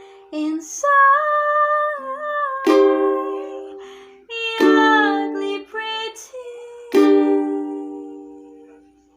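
Ukulele playing the closing chords of a song, with strums about every two seconds; the last chord rings and fades away. A held sung note comes near the start.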